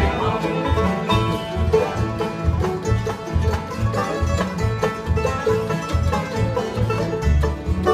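Acoustic bluegrass jam played on five-string banjo, acoustic guitars and fiddle, instrumental, with a steady beat about twice a second.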